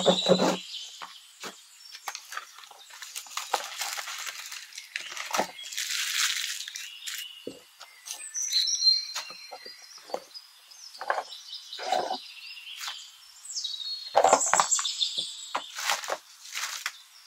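A small cardboard box being opened by hand: a pen scraping through the tape, cardboard flaps squeaking open, crumpled tissue paper crackling and rustling, and light knocks as small plastic parts are set down on a mat.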